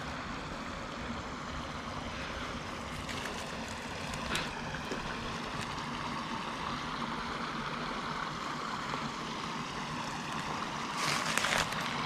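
Steady rush of a small creek waterfall spilling into a pool, growing a little louder towards the end, with a few short crunches near the end.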